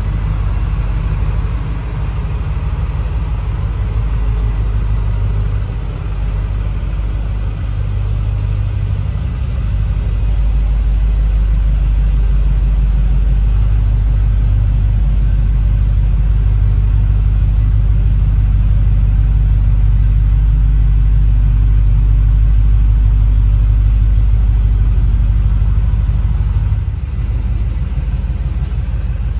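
The 6.2-litre LS3 V8 of a 2016 Holden Commodore SS-V Redline VF II idling with a steady deep rumble. It grows louder about a third of the way in and eases back a little near the end.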